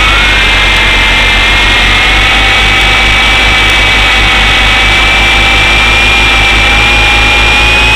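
Swann Sky Eye remote-control helicopter's small electric motors and rotors whining high and steady, settling just after spinning up, over a constant low rumble.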